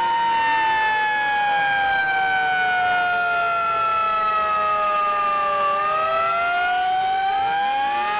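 Several fire engine sirens wailing at once. The loudest slowly falls in pitch and then winds back up about six seconds in, while the others sweep up and down across it.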